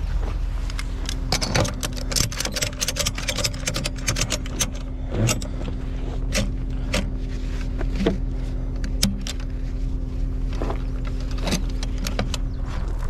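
Ratchet strap being cranked tight around a tyre on a wheel dolly: a quick run of metal ratchet clicks for the first few seconds, then single clicks about a second apart. A steady engine hum runs underneath.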